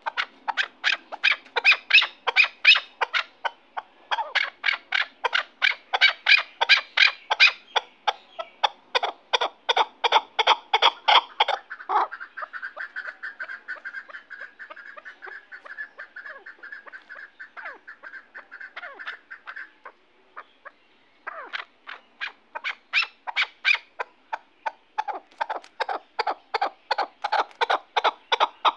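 Chukar partridge calling: long runs of rapid, repeated chuck notes, about four or five a second. The calling eases off in the middle, stops briefly, and starts up loudly again.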